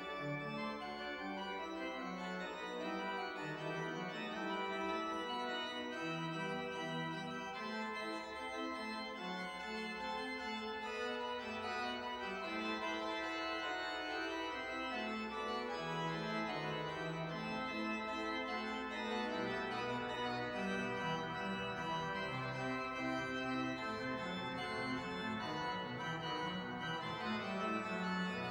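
Pipe organ playing a busy piece in several simultaneous lines, with many notes changing quickly over a moving bass, at an even level throughout.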